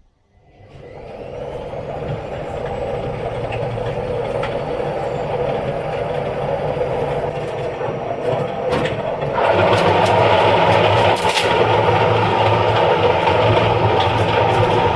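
Electrolux washing machine spinning up with a brick in the drum: a motor whine rises over the first couple of seconds into a steady loud rumble, which steps up louder about nine and a half seconds in, with a few sharp knocks.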